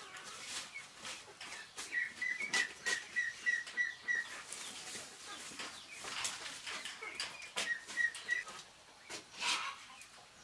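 A bird repeats a short whistled note about five times a second in two runs, one near the start and a shorter one past the middle, over scattered sharp clicks and knocks.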